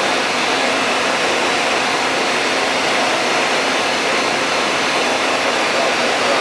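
Steady, loud rushing noise of running industrial machinery in a machine shop, even and unbroken, with no distinct strokes or rhythm.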